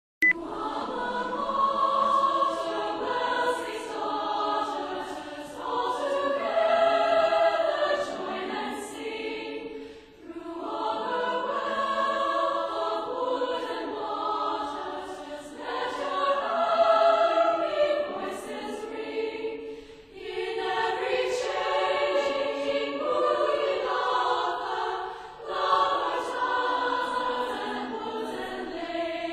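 Choir singing in long, sustained phrases, with brief dips about every ten seconds.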